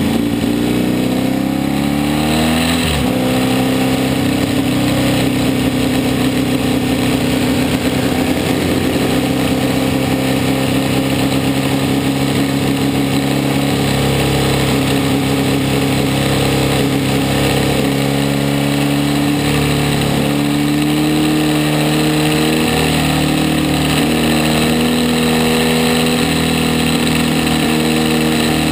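Racing motorcycle engine running hard at around 4,000 to 5,000 rpm, recorded on board with wind rushing over the microphone. The revs climb over the first two seconds and drop sharply about three seconds in, then hold fairly steady with a few small steps.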